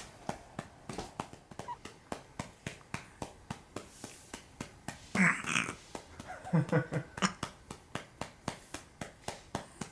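Hand patting a newborn's back in a steady rhythm, about four soft pats a second, to bring up wind. About halfway through the baby burps, with short low burps following a second or so later.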